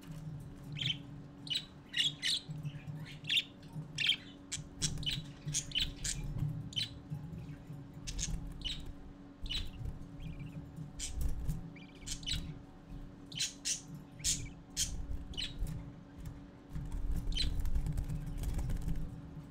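Budgerigar (parakeet) chicks cheeping in many short, high chirps, begging while the adult male budgie feeds them in the nest box. A steady low hum runs underneath, with a low rumble near the end.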